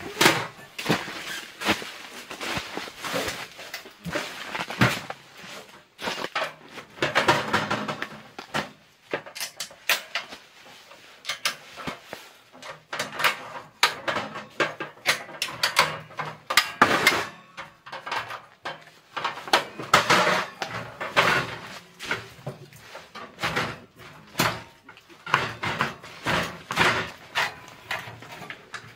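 Caminus M sheet-metal wood stove being unpacked from its carry bag and set up: irregular clanks and knocks of the metal body and legs being handled, with rustling between.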